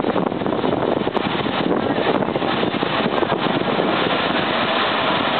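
Steady rush of wind on the microphone at an open window of a moving diesel railcar, with the railcar's running noise underneath.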